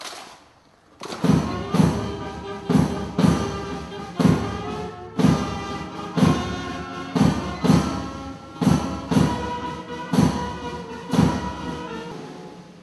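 Band music: a steady drum beat about twice a second under sustained wind notes, starting about a second in and fading near the end.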